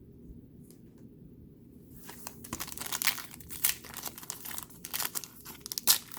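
Plastic trading card pack wrapper being torn open and crinkled by hand: quiet for the first two seconds, then a rapid run of sharp crackles and rips.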